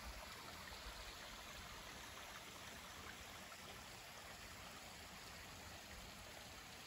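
Small mountain stream flowing, a faint steady rush of water.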